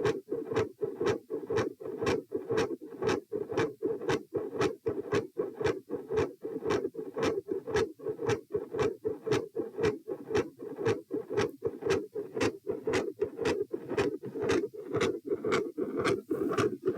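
Heartbeat heard through a stethoscope over the pulmonary area: a regular lub-dub with a consistently loud second heart sound, at roughly one and a half beats a second. A steady low rushing noise runs under the beats.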